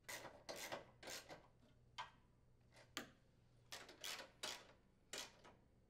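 Ratchet wrench clicking in about ten short bursts as it turns bolts into a snowblower's plastic housing.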